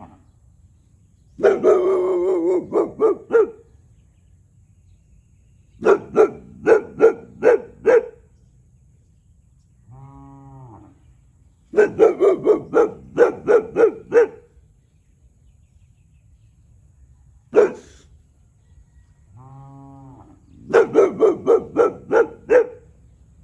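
A young boxer dog barks territorially in quick volleys of several sharp barks: four volleys and one single bark. Between them a cow moos three times, much quieter than the barks, and each moo is followed by the next volley.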